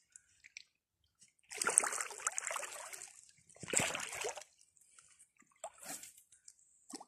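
Water splashing and sloshing in three bursts: a longer one about one and a half seconds in, another near four seconds, and a short one near six seconds.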